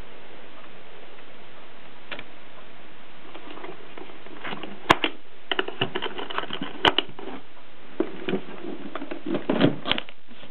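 1950s Express bakelite typewriter being typed on: an irregular run of key strikes clacking, two sharp strikes louder than the rest, over a steady hiss.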